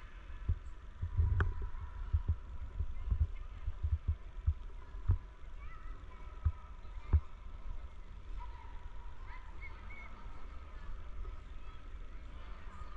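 Low rumble with a run of irregular dull thumps over the first seven seconds, then only the steadier rumble.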